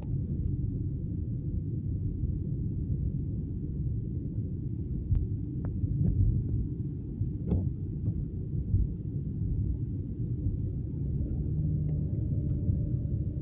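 Steady low rumble of a car driving on a wet road, heard from inside the cabin, with a few faint ticks.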